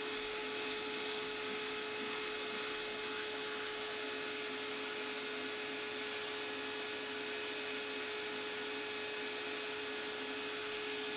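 Workshop dust-extraction vacuum running steadily, drawing through the hose of a hand sanding block on a bare wooden guitar body: an even hiss with one steady tone over it.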